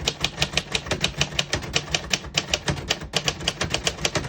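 A 1963 Royal Safari manual portable typewriter typing a sentence: quick, even keystrokes, about seven or eight a second, with a couple of brief pauses.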